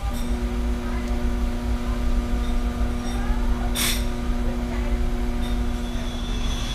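A steady pitched mechanical hum that starts at once and cuts off just at the end, over a constant low rumble, with one sharp click about four seconds in.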